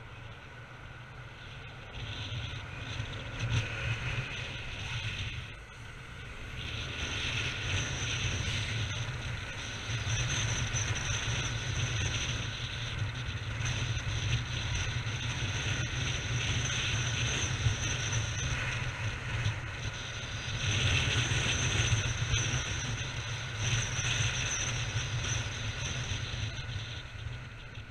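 Road and wind noise from a moving vehicle, heard through a camera mounted on it: a steady rushing with deep wind rumble on the microphone. It grows louder about seven seconds in, dips briefly about twenty seconds in, and fades near the end.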